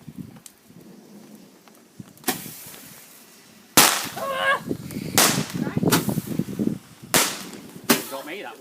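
Fireworks going off: a series of about six sharp bangs, the loudest about four seconds in, with crackling in between.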